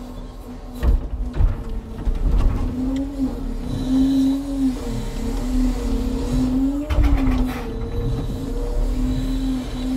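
Timber truck engine running with a steady hum whose pitch rises and falls slightly, with a few sharp knocks, one about a second in and another near three-quarters through.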